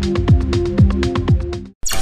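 Electronic background music with a kick drum about twice a second, ticking hi-hats and held synth chords; it cuts off suddenly near the end and a new sound starts with a sharp burst.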